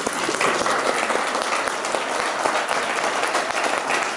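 Audience and cast applauding: many hands clapping at once in a steady, even wash.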